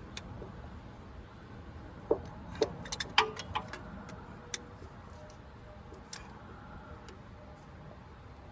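Light metallic clicks and clinks of hand tools being handled while working under a vehicle, a cluster of them about two to three and a half seconds in, then single ones.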